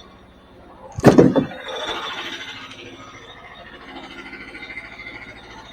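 A loud bang about a second in, trailing into a short clatter that fades, over the steady running of a portable sawmill.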